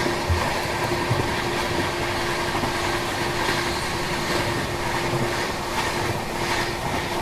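Deccan Express passenger train running along the track, heard from inside a coach: a steady rumble with a constant hum and occasional faint rail clicks.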